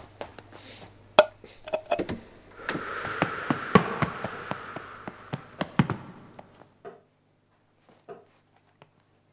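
A quick run of sharp taps and knocks, about three a second at first, with a hissing rush swelling over them from about three to six seconds in. After that only a few faint clicks remain.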